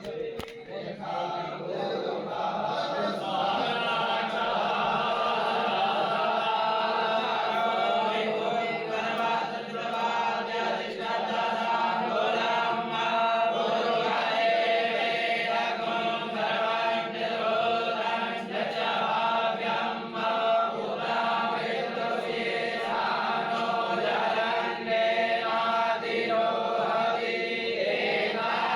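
A group of voices chanting a Hindu mantra together in unison, steady and continuous.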